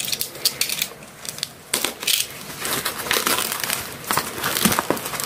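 Crinkling and crackling of thin packaging wrap being pulled open and handled by hand, in irregular crackles.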